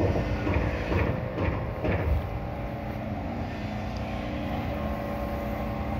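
A motor running steadily over a low rumble, its hum settling to an even pitch about two and a half seconds in, with a few soft knocks in the first two seconds.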